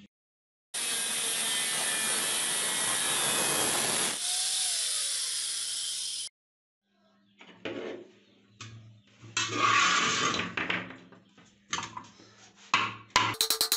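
A threaded steel rod being cut off, a steady hissing grind that stops abruptly after about five and a half seconds. Then scattered clicks and rubbing as a wooden handle is screwed onto the rod, ending in a quick run of rapid clicks.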